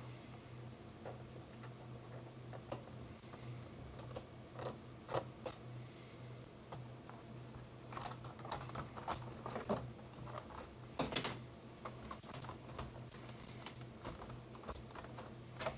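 Irregular plastic clicks and clacks from a budget mechanical keyboard being handled and taken apart, scattered at first and more frequent in the second half, over a low steady hum.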